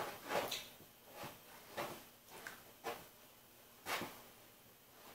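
Several short, scattered knocks and rustles of handling: a welder moving about and working his gloves and gear, with the loudest knock about four seconds in.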